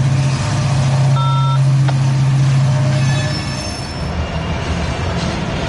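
Freight cars rolling through a rail yard over a steady low engine hum, with thin high-pitched squeals from steel wheels. About three seconds in the hum cuts off and a cluster of wheel squeals follows.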